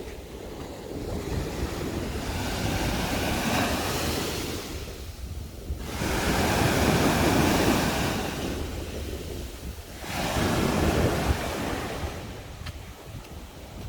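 Sea waves breaking and washing up on a beach, surging in and falling back about every four seconds, with wind buffeting the microphone.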